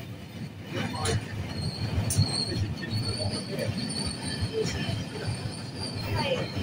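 Passenger carriages rolling out of the station as the train departs, wheels squealing with a steady high whine over a low rumble, with a couple of sharp clicks.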